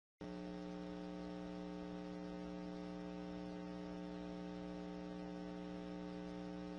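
Steady electrical mains hum, a buzz of several fixed tones, cutting in abruptly out of dead silence and holding at an even level.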